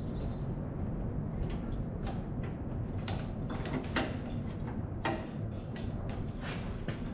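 Irregular metal clinks and clanks of hand tools and parts as a VW Beetle engine is being disconnected for removal, several with a short ringing tail, over a steady low hum.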